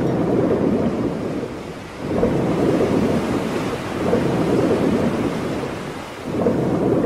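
Sound effect of ocean waves: a low rushing wash of noise that swells and eases about every two seconds.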